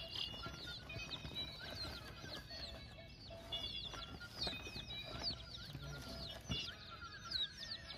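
A flock of chickens clucking and chirping, with many short, high, downward calls coming thick and fast.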